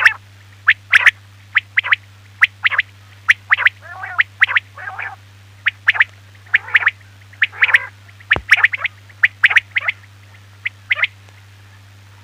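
Quail calling over and over: short, sharp call notes, often in twos and threes, with a few lower, rolling, gurgling notes between them. It is a quail call recording of the kind played to lure quail for hunting.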